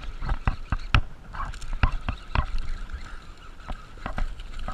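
A fish being reeled in on a baitcasting reel and landed at the bank: the reel cranking and the fish splashing at the surface, heard as a string of irregular sharp clicks and splashes.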